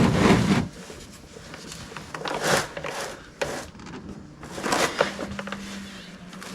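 Scrapes and knocks of hands and a tool working at an over-tightened oil filter. A loud scraping rush at the very start is followed by scattered shorter scrapes and knocks, with a faint steady hum from about halfway through.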